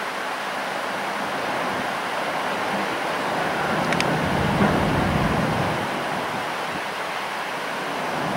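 Strong wind rushing over the microphone, mixed with the steady hiss of expressway traffic. The rush swells and deepens for a few seconds in the middle, and there is one brief tick about four seconds in.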